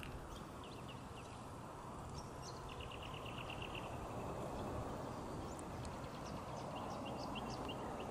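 Small birds chirping, with a quick trilled run a few seconds in, over a faint, steady jet rumble that grows slowly louder: a Boeing 737-800 still far out on final approach.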